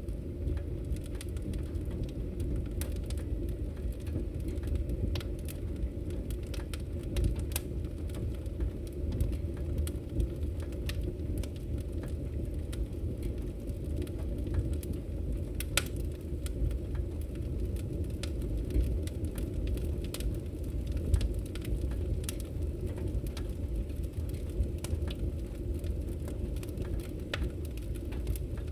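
Wood fire crackling: irregular sharp pops and snaps, a few louder than the rest, over a steady low rumble.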